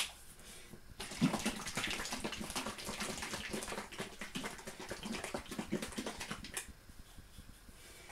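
A plastic squeeze bottle of homemade tomato sauce being shaken hard, the thick sauce sloshing and rattling inside in quick strokes, starting about a second in and stopping after about five and a half seconds.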